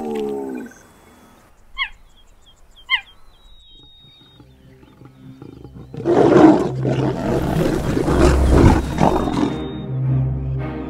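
A pride of lions growling loudly over a kill, setting in about six seconds in, over background music with a low drone. Before that it is quiet apart from two short high calls.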